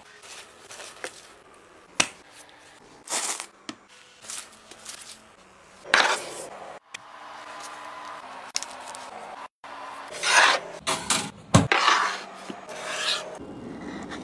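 Close-up food-handling sounds in short separate strokes: cling film rustling as a filled crepe is rolled up, and the soft handling of raw puff pastry. Near the end comes a run of loud rasping strokes: a knife sawing through the crisp baked puff-pastry crust of a Beef Wellington on a wooden board.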